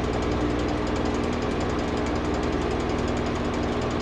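Engine running steadily, with a fast, even knocking pulse over a steady hum.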